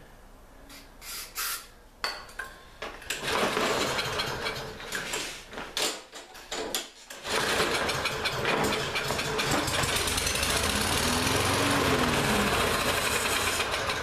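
Lawn-Boy push mower's small four-stroke engine starting on a shot of starting fluid and running, then dying briefly about six seconds in before catching again and running steadily. Its carburetor is still partly gummed up and is being cleared with spray cleaner while it runs.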